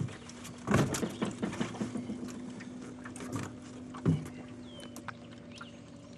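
Knocks and thumps of a heavy flathead catfish and hoop net being handled in a flat-bottomed boat. A cluster comes about a second in and one more thump about four seconds in, over a steady low hum.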